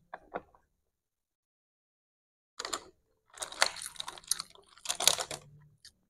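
Fingers digging through rice and food in a cardboard takeaway box: crackly rustling and clicking in a short burst about two and a half seconds in, then a longer stretch of about two and a half seconds. Faint chewing sounds at the start.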